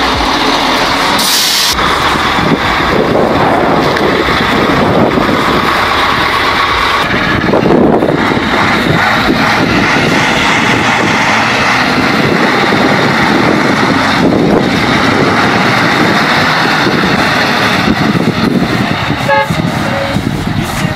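Heavy KamAZ dump trucks' diesel engines labouring under load on rough ground, a loud, steady mix of engine and driveline noise. A brief horn toot comes near the end.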